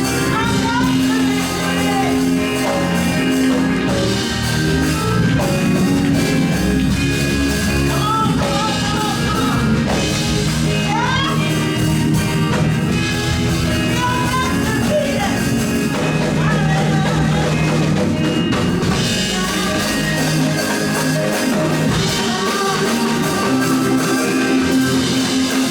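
Live gospel praise-break band music: a drum kit and electric guitar over held chords, with some singing or shouting.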